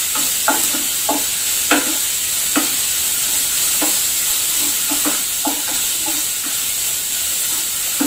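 Chopped onions sizzling steadily in hot oil in a nonstick pan over a medium flame, sautéing until they turn transparent. A wooden spatula stirs them, scraping and tapping against the pan irregularly, about once a second.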